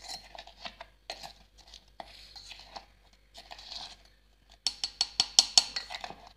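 A plastic spoon stirring dry powder in a stainless-steel mixer jar, scraping and clicking against the metal. In the last couple of seconds it becomes a quick run of sharp taps, about five a second.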